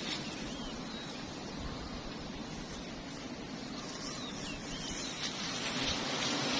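Steady hum of a swarm of giant honeybees flying around the hive, with a few faint bird chirps.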